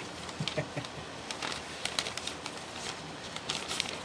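A large folded paper leaflet being unfolded and handled, giving irregular crisp rustles and crinkles.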